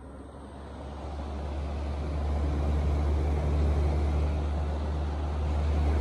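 2019 Frigidaire window heat pump running with a steady low hum, growing louder over the first two or three seconds and then holding.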